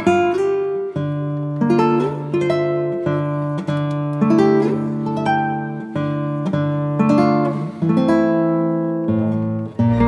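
Background music played on acoustic guitar, with plucked and strummed chords sounding a new chord every second or so, each ringing out.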